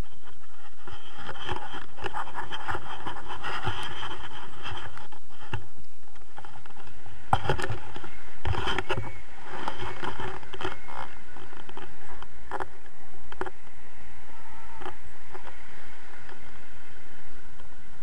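Wind rushing over an action-camera microphone as a tandem paraglider launches and flies, a steady loud rumble and hiss. A few knocks and rattles come around halfway through.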